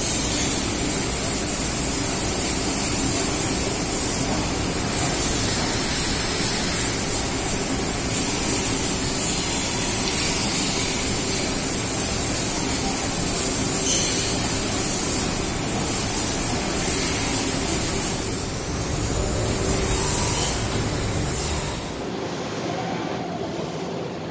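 Mazak laser tube-cutting machine cutting steel tube: a steady, loud hiss. Near the end the hiss stops and a quieter, lower machine hum remains.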